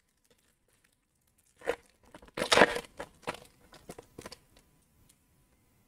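Foil hockey card pack wrapper being torn open and crinkled by hand, in a few short rips and rustles from about one and a half to four and a half seconds in.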